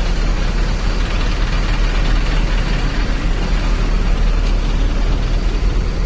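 Front-mounted diesel engine of a Mercedes-Benz OF-1623 RF bus idling steadily, a low rumble.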